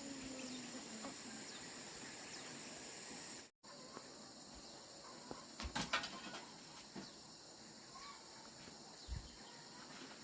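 Faint insect shrilling: a steady high-pitched drone with small chirps. There are a few light clicks or taps about halfway through and a short dull thud near the end, and the sound cuts out briefly about a third of the way in.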